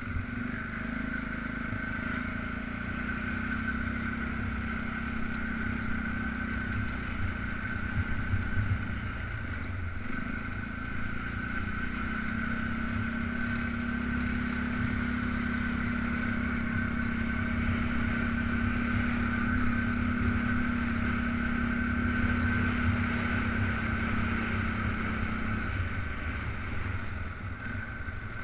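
Polaris Sportsman 500 ATV's single-cylinder four-stroke engine running as it is ridden along a trail, with a steady high whine over it. The engine eases off about ten seconds in, picks up again a couple of seconds later, and drops back near the end.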